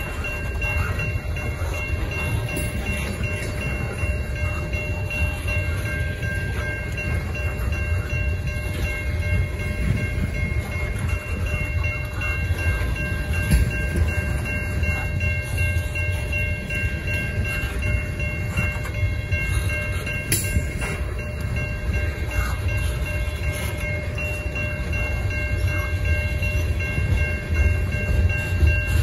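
A long freight train of tank cars rolling steadily past, with a deep rumble of wheels on rail. Several steady high-pitched tones sound over it, and a single sharp click comes about twenty seconds in.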